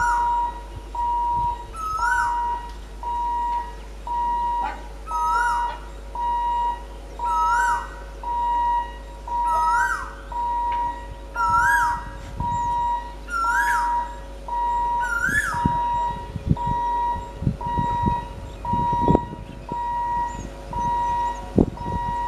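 A level-crossing warning beeper sounding one steady tone about once a second. Over the first two-thirds, a rising-then-falling whistle-like call repeats about every two seconds. In the last few seconds the approaching EMU train's wheels come in as low, irregular knocks and rumble.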